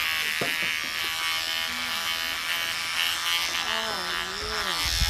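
Cordless electric beard trimmer buzzing steadily as it is worked over the mustache and beard.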